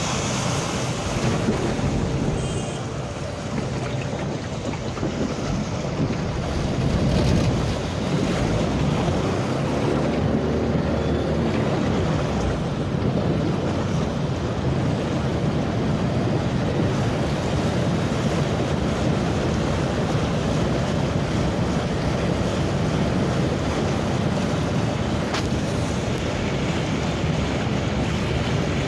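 A vehicle driving through deep floodwater: the low, steady rumble of its engine mixed with water sloshing and splashing around the wheels.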